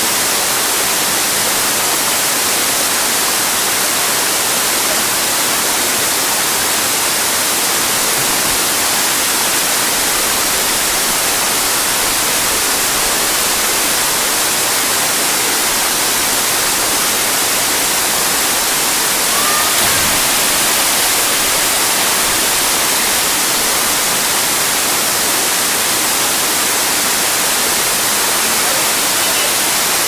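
Waterfall and stream, a steady, even rush of falling water.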